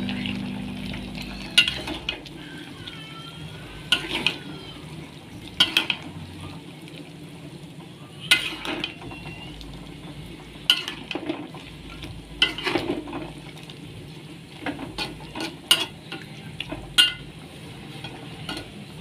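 Utensil stirring a pan of simmering coconut-milk chicken curry: sharp clinks against the pan every second or two over a steady low bubbling hiss.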